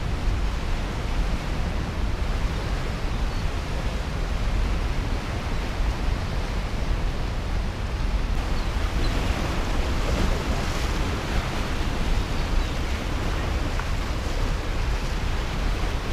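Churning floodwater released from a dam's flood gate, a steady rushing noise, with wind buffeting the microphone as a low rumble.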